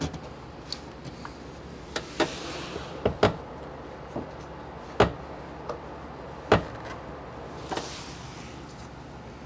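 Scattered sharp plastic clicks and knocks, about eight in all and loudest around five and six and a half seconds in, with soft rustling twice between them: fuel injector wiring connectors on a Jeep Wrangler TJ engine being worked loose by hand.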